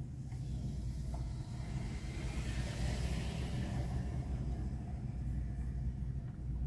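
Car engine and road noise heard from inside a slow-moving car: a steady low rumble, with a hiss that builds up in the middle and fades again.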